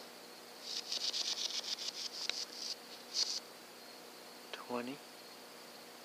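Insects buzzing in quick, even pulses for about two seconds and again briefly a little later, over a steady high-pitched insect drone. A short, low pitched call sounds once, near the end.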